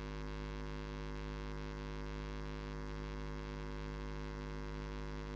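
Steady electrical mains hum with a buzz of many even overtones, picked up through the microphone and sound system, holding at one level throughout.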